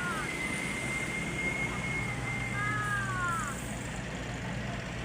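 Heavy diesel machinery running steadily with a low engine drone. A thin high whine holds for about two seconds near the start, and a pair of falling tones follows about three seconds in.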